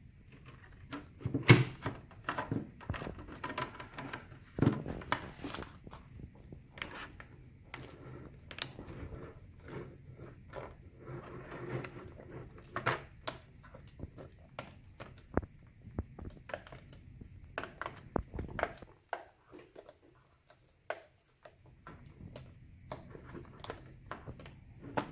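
Irregular small clicks, taps and knocks of hands working on a laptop's new LCD panel and plugging in its display cable connector. The clicks come thick and fast at first and thin out over the last few seconds.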